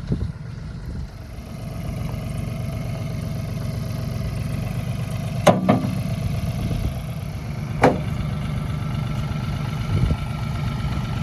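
An engine idling steadily while rocks are tossed into a metal bucket. They clang sharply twice, about halfway through and again about two seconds later, with a duller knock near the end.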